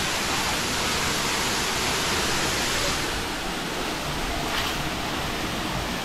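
Waterfall plunging into its pool: a steady, loud rush of falling water.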